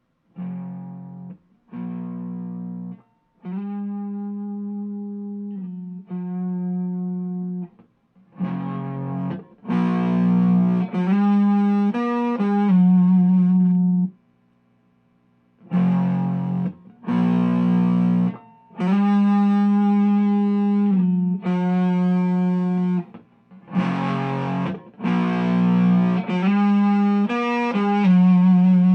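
Electric guitar on its neck single-coil pickup, played through an Xotic Effects SL Drive overdrive pedal into an Orange Micro Dark amp. Distorted held notes and chords come in short phrases, each note cut off abruptly, with a pause of about two seconds midway.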